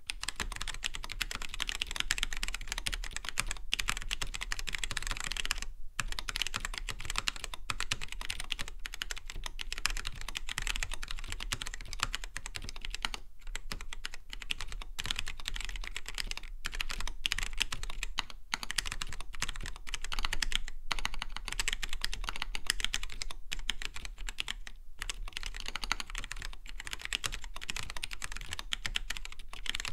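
Fast continuous typing on a mechanical keyboard fitted with Kailh Polia tactile switches: a dense stream of key clacks broken by a few short pauses.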